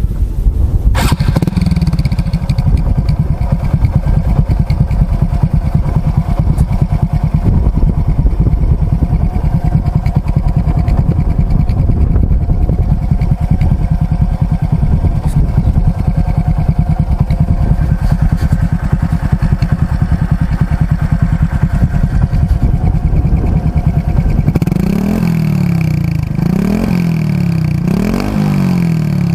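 Honda XRM RS 125's stock single-cylinder four-stroke engine idling steadily through an Exos R5 Pro aftermarket exhaust with its silencer fitted. In the last five seconds the throttle is blipped about four times, the revs rising and falling each time.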